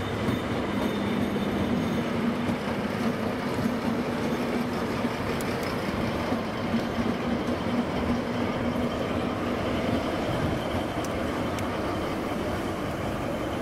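DR class 118 (V 180) diesel-hydraulic locomotive passing slowly at close range, its diesel engines running with a steady hum that fades about two-thirds of the way through as it moves away.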